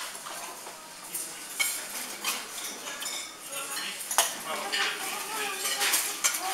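Metal cutlery clinking and scraping on china plates and bowls as two people eat, in a run of light irregular clinks with a few sharper ones.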